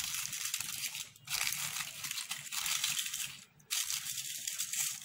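Crinkling and rustling of red fluted candy cups as chocolates in them are pressed and shifted into a small cardboard box. It comes in three stretches with two brief pauses.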